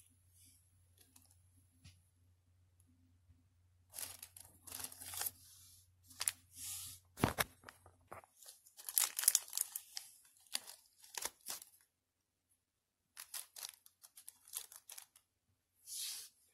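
Thin clear polyethylene (LDPE) bag crinkling and being torn open by hand, in a run of short rustling rips from about four seconds in, a soft knock partway through, and a few more crinkles near the end.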